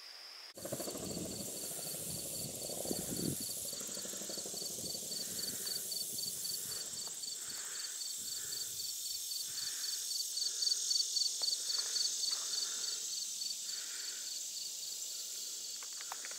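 Insects chirping in a fast, even rhythm, about four chirps a second, over a steady high hiss of more insects.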